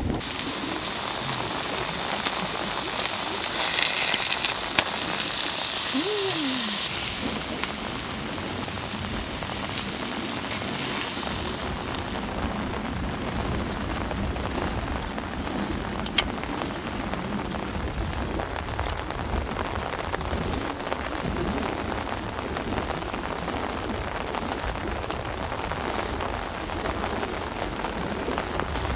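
Steady rain falling, heavier for the first several seconds and then settling to an even patter, with a single sharp tick about sixteen seconds in.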